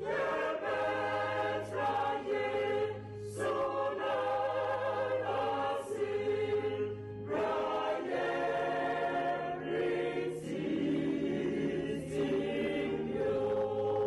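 Mixed church choir of men's and women's voices singing a hymn, in phrases with short breaks between them.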